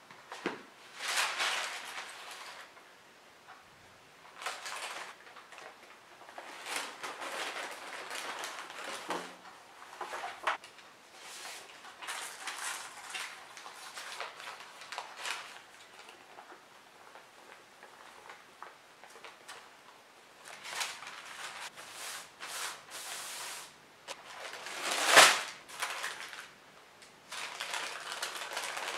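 Baking parchment paper rustling and crinkling in irregular bursts as it is handled and peeled from a baked sponge cake sheet, with one sharp knock near the end.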